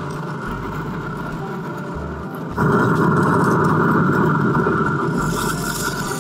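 An engine running steadily. It jumps suddenly louder about two and a half seconds in and eases off a little toward the end.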